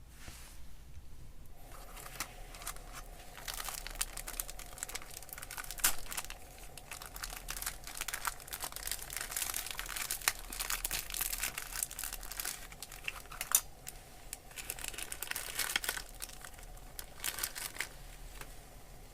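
Irregular crinkling and rustling of a plastic or nylon bag or sheet being handled, starting about two seconds in, with a brief pause a little after two-thirds of the way through.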